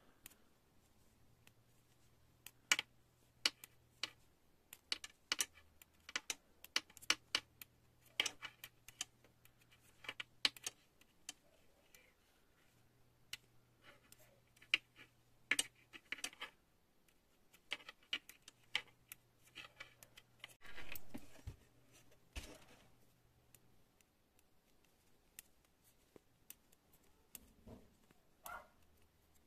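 Quiet, irregular clicking of metal knitting needles tapping against each other as stitches are knitted, with a longer, louder rustle about 21 seconds in.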